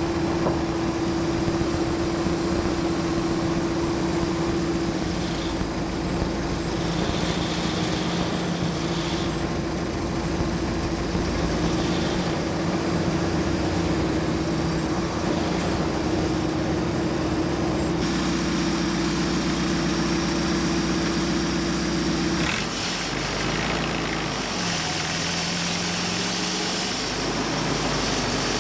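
Ford GPA's four-cylinder flathead engine running at a steady idle, a constant drone. The sound shifts about three-quarters of the way through.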